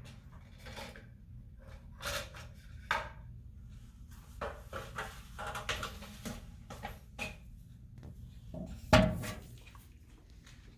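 A battery wall clock being handled while it is set to the time: scattered light clicks and scrapes, with one sharp knock about nine seconds in.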